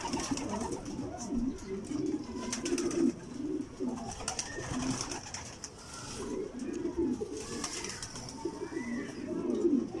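Racing pigeons cooing, one low throaty coo after another.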